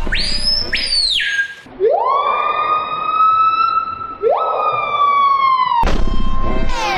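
A siren-like wail. A short, high tone rises, holds and drops away in the first second, then two long wails each sweep up and hold, sliding slightly down. The second wail cuts off sharply about six seconds in.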